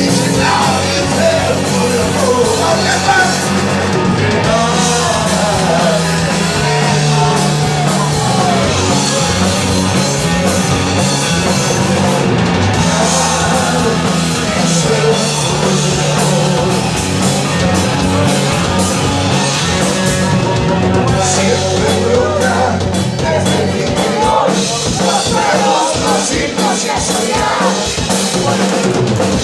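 Rock band playing live, with a singer over drums, bass and guitar.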